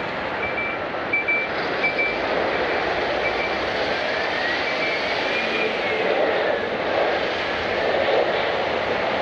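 Jet airliner engines at an airport, a loud, steady rush of noise. In the first few seconds there is a series of short high beeps; in the middle a whining tone rises and then falls.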